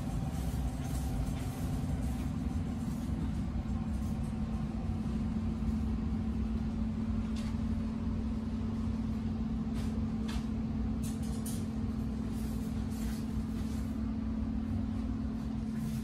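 Steady low machine hum with a held tone and a low rumble under it, with a few faint clicks in the second half.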